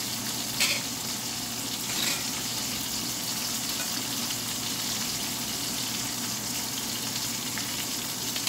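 A metal spoon scraping and tapping against a glass pie dish while food is spooned onto it, with two short sharp sounds about half a second and two seconds in. A steady hiss runs underneath.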